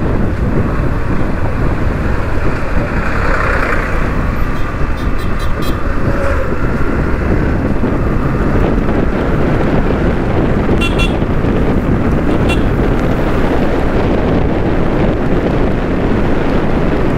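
Motorcycle ride on a busy road: a steady rumble of engine and wind noise, with short vehicle horn toots about five seconds in and again around eleven and twelve seconds in.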